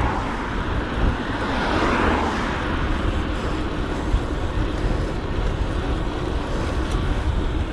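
Wind rushing over an action camera's microphone while riding a bike, a deep steady rumble with road traffic noise; a vehicle passes, swelling and fading about two seconds in.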